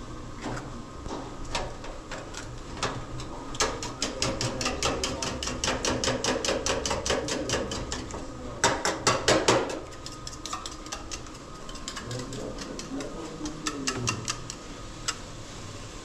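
Metal spoon beating eggs in a small stainless-steel bowl: a fast, even clatter of spoon against bowl, several strokes a second, loudest about nine seconds in. A few separate spoon taps come before it.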